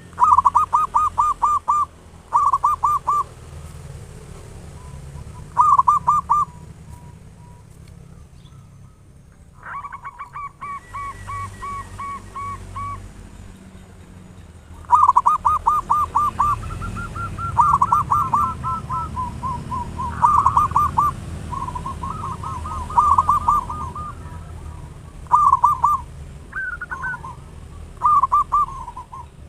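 Zebra doves (perkutut) singing: bursts of rapid, staccato cooing notes, each phrase lasting about a second and repeated many times at slightly different pitches. A steady low hum runs underneath.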